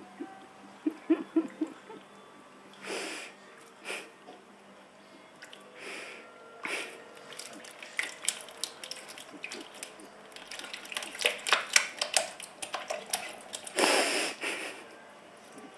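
A kitten's paws splashing and slapping at the water in an electric cat drinking fountain: irregular small splashes and drips, with a few short rushing bursts, the loudest about fourteen seconds in, over a faint steady hum.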